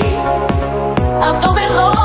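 Instrumental electronic pop music: a kick drum on every beat, about two a second, under held chords, with a gliding lead line about a second in.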